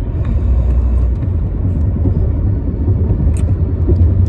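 Steady low road and engine rumble inside the cabin of a moving car, with a brief click about three and a half seconds in.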